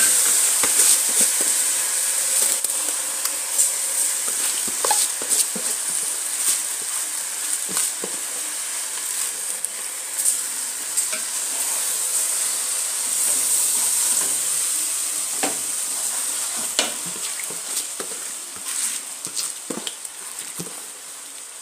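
Freshly washed rice frying and sizzling in hot oil in a pot, with a wooden spoon stirring and scraping through it in short clicks. The sizzle slowly dies down toward the end.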